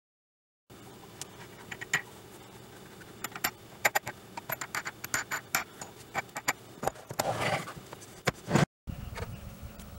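Metal wing nuts being turned and spun off the threaded bolts of a plywood book press, giving a string of sharp clicks and rattles that start about a second in. Near the end comes a scraping rush and a thump as the press board is handled and lifted off.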